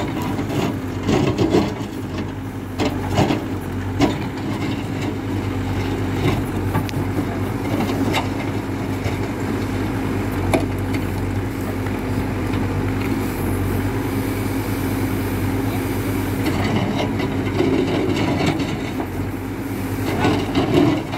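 Hidromek 102B backhoe loader's diesel engine running steadily under load, with knocks and scrapes from the bucket digging hard ground: several in the first few seconds, a few single ones after, and another cluster near the end.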